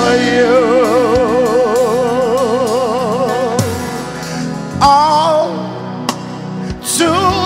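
Gospel worship music: a solo voice holds one long note with a wide vibrato for about three and a half seconds over sustained accompaniment, then sings two short phrases.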